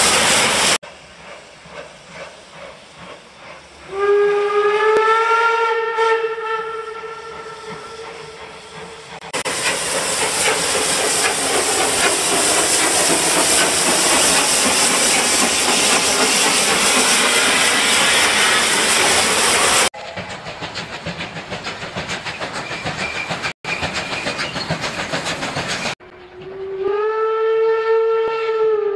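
Recorded sound effects of a full-size steam train. A long whistle blast starts about four seconds in and lasts about five seconds. Then comes a loud steam hiss for about ten seconds, a quieter stretch of running train noise, and a second long whistle near the end.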